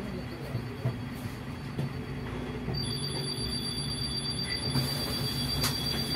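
City bus running, with low engine and road noise heard from inside the bus. A steady high-pitched whine switches on about halfway through, and a single click comes near the end.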